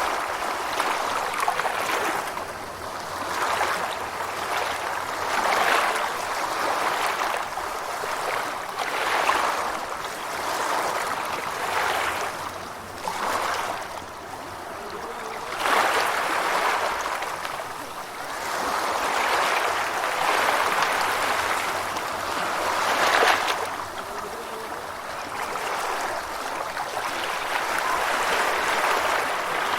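Gentle ocean waves washing in, a steady rush of water that swells and ebbs every couple of seconds, with two stronger surges past the middle.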